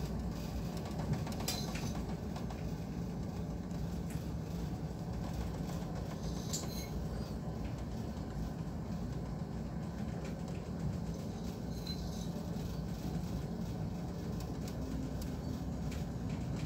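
Steady low rumble and hum of a handysize cargo ship underway in a rough sea, mixed with wind and wave noise, with a few faint clicks.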